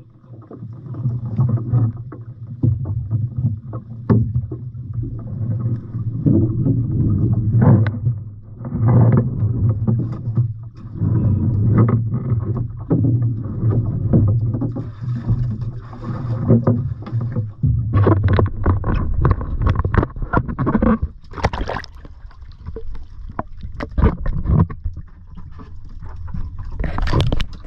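A boat engine running steadily with a low hum, with water splashing and irregular knocks against the hull.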